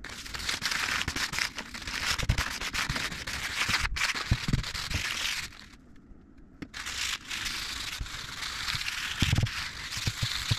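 Rustling, scrubbing noise of oil being rubbed into a wooden cutting board by hand, with a few low knocks. It breaks off for about a second around the middle, then resumes.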